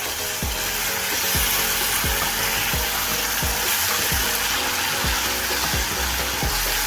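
Spicy chilli-oil and gochujang sauce with dark soy sauce just added, sizzling steadily in a hot pan on medium-low heat.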